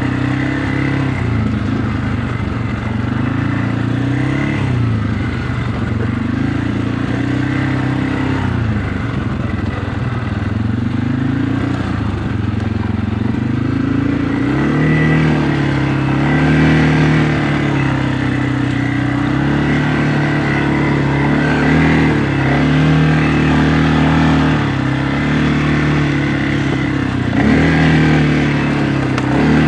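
2025 CFMOTO CForce 600 Touring ATV's single-cylinder engine running under changing throttle as it is ridden, its pitch rising and falling again and again.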